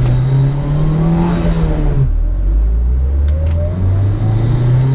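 Mitsubishi Lancer Evolution VIII RS engine accelerating under load. Its pitch rises, drops suddenly at a gear change about two seconds in, then climbs again and drops once more near the end.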